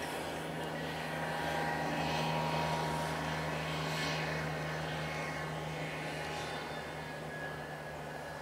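Diesel locomotive engine running steadily at low throttle as it creeps forward, a constant low hum under a wider rushing noise that swells slightly in the first few seconds.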